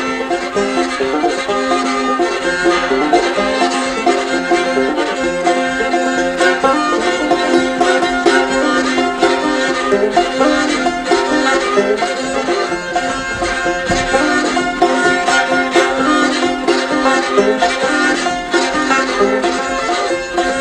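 Banjo and fiddle playing an old-time instrumental opening, with a held, steady note running under the quick picked tune; no singing.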